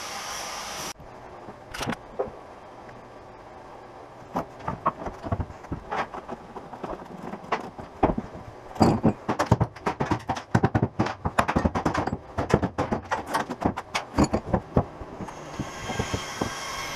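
A handheld angle grinder runs and cuts off about a second in. A long run of irregular knocks, taps and clatter follows as the diamond-plate sheet and tools are handled on the fiberglass boat deck. The angle grinder starts running again near the end.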